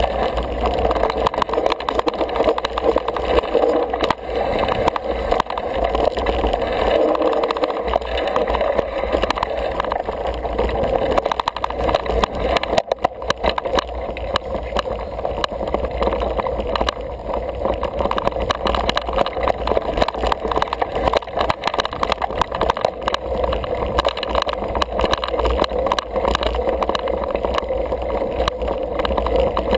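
Single-speed 29er mountain bike rolling along a rough dirt singletrack: a constant rattle and rumble from the tyres and bike jolting over the ground, with many small knocks throughout.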